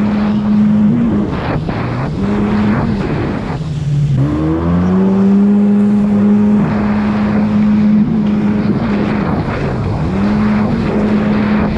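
Jet ski engine running at speed with a steady drone. Its pitch dips as the throttle is eased and comes back up several times, most deeply about four seconds in. Rushing water and spray off the hull run underneath.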